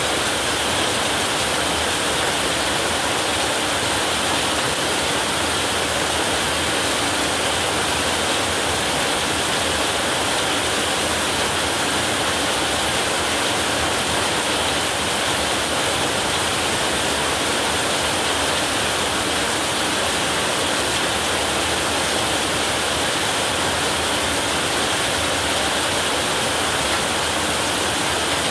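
Heavy rain falling steadily on a roof: a dense, even hiss that does not change, with no thunder.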